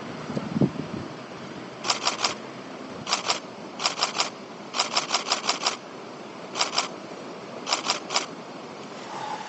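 Nikon D750 DSLR shutter firing in short continuous bursts: six bursts of two to seven frames each at about six frames a second, the first about two seconds in and the longest, about seven frames, near the middle.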